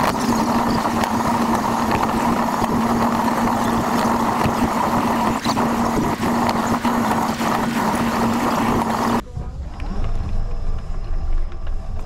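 Close-up whine of a remote-controlled mouse droid's small electric drive motors, with its wheels rolling over pavement and small clicks. About nine seconds in it cuts abruptly to a quieter low rumble as the droid rolls on carpet.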